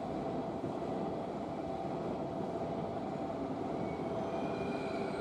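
Container freight wagons rolling over the rails, a steady rumble and clatter of wheels on track as the train pulls away. Faint high whining tones join near the end.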